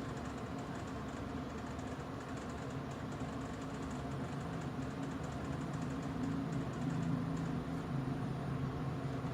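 Kolin air conditioner running with a steady hum and a fast, fine rattle over it, the rattling noise fault it has developed. The hum grows stronger about halfway through.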